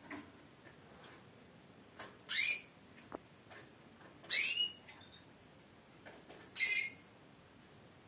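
Female Timbrado canary calling three times, about two seconds apart, each call a short chirp that rises and falls in pitch. A few faint clicks come between the calls.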